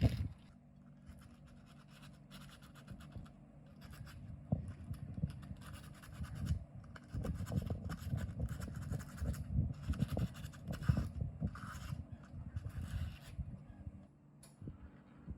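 Rapid, repeated scratching and scraping strokes against a surface, fainter at first and busier from about four seconds in.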